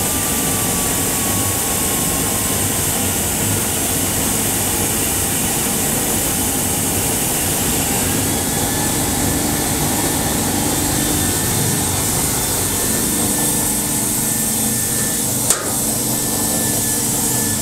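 Factory processing machinery running steadily: a loud, even rush like a blower, with a faint steady whine that comes in about halfway through. A single sharp click sounds near the end.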